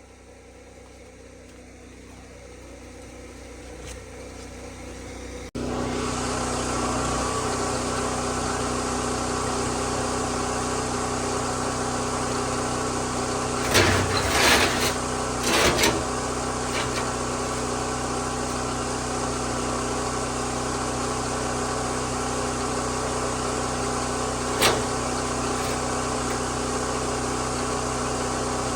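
Kubota KX040 mini excavator's diesel engine running steadily, cutting in abruptly about five seconds in after a fainter rising hum. A few sharp clanks come about halfway through, and one more near the end.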